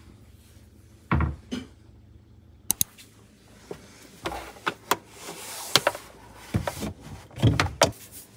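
Irregular knocks and clicks of handling a rice cooker and plugging in its power cord, with a short rustle about five seconds in.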